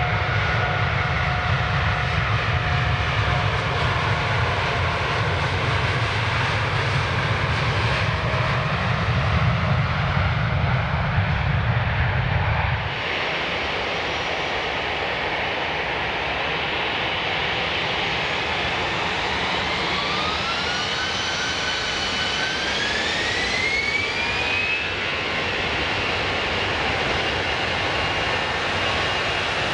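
Jet airliner engines at takeoff power, a deep rumble with whining tones slowly falling in pitch. About halfway, the sound switches to another airliner whose engines spool up: a whine rises in pitch for several seconds, then holds steady.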